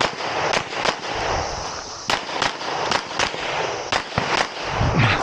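A string of 9mm pistol shots from a Canik METE SFT Pro fired in a competition stage, mostly in quick pairs with short breaks between, about nine shots in all, each echoing off the range.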